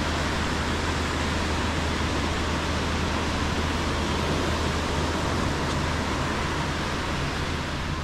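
Steady, even hiss of surf washing up the sand, mixed with wind, with no distinct events.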